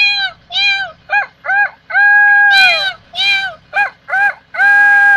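A person imitating animal cries: a run of short, high-pitched yips and two longer calls that fall in pitch at the end.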